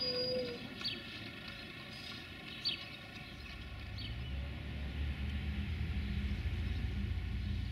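Deep diesel engine rumble of a heavy vehicle, swelling from about halfway through and loudest near the end. Birds chirp in the first half.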